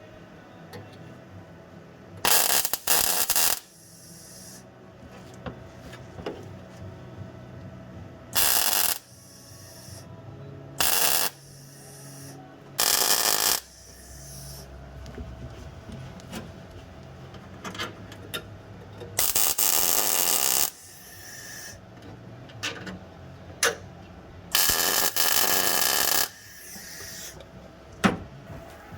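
A series of about seven short bursts of loud hissing noise, each lasting half a second to a second and a half, at irregular gaps of a few seconds over a quieter workshop background. The longest bursts come about two-thirds of the way through and near the end.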